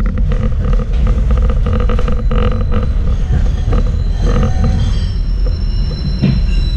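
Schindler Waggon Be 4/6 tram running, heard from inside the car: a steady low rumble with rattling and clatter of the wheels over the track. A thin high whine comes in about four seconds in.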